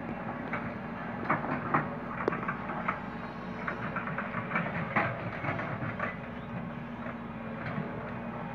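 Sumitomo SH130LF excavator's diesel engine running steadily under load, with irregular knocks and clatter as rocks and soil tumble from its bucket into a steel dump-truck bed; the clatter is loudest about a second and a half in and again around five seconds.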